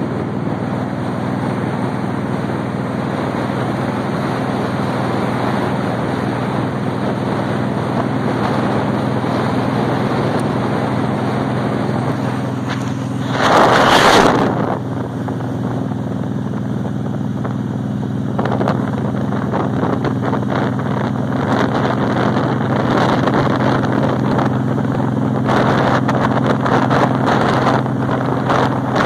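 Motorcycle engine running at a steady cruising speed, with wind rushing over the microphone. A loud blast of wind noise comes about halfway through.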